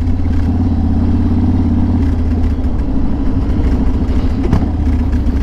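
Yamaha Raider's 1,900 cc V-twin engine running steadily at a low, even pace while cruising behind slower traffic.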